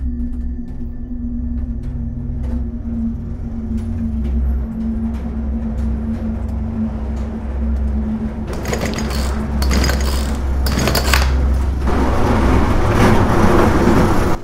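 Dark cinematic sound-design score: a steady low drone, joined about halfway by noisy swells that build in loudness and cut off sharply at the end.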